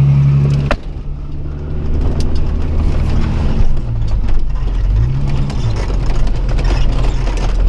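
Vehicle engine running steadily while crawling over a rough off-road trail, with scattered knocks and rattles from the body bumping. A sharp knock under a second in is followed by a drop in engine level, and the engine pitch briefly rises and falls about five seconds in.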